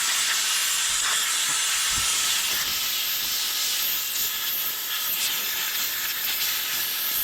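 Compressed air blowing in a steady, strong hiss, cleaning dust and dirt off a VFD's circuit board.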